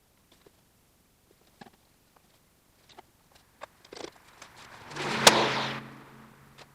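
Scattered light clicks and taps of hand tools and metal parts during work on a car's rear axle. About five seconds in comes a louder burst of noise with one sharp knock, followed by a brief low hum.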